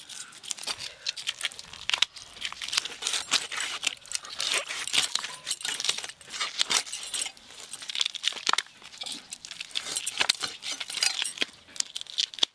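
Bangles jingling and clinking on the wrists of hands cutting raw chicken on a boti blade, with scattered light knocks and clicks from the cutting.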